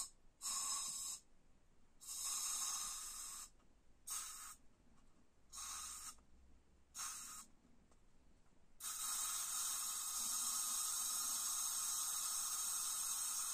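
Aerosol can spraying liquefied gas into a small glass: five or six short hissing squirts, then one long continuous spray of about five seconds near the end.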